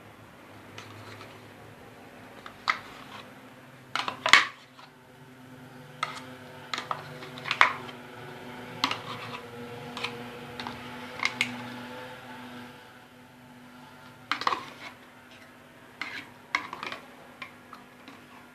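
Kitchen utensils clinking and knocking against a mixing bowl in irregular, separate strikes, the loudest about four seconds in, over a faint steady hum.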